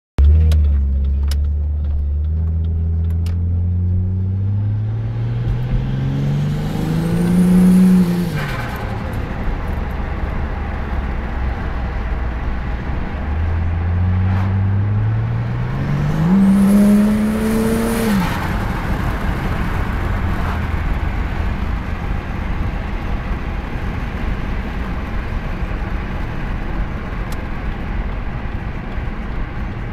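Ford XR6 Turbo's turbocharged inline-six accelerating hard twice, its note rising steadily for several seconds each time. Each pull ends with a sudden drop in pitch and a brief high chirp as the throttle is lifted: turbo flutter. Steady road and engine noise follows while cruising.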